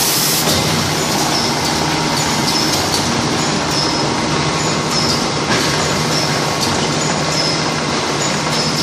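Tissue-paper converting and packing line running: a steady, loud machinery din with a low hum. Short high-pitched chirps recur about twice a second, with a few sharp clicks.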